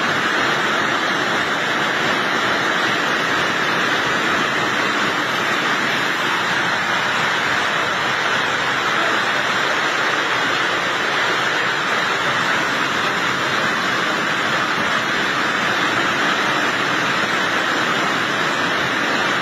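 Heavy hailstorm: hail and rain pelting down in a steady, unbroken rushing noise.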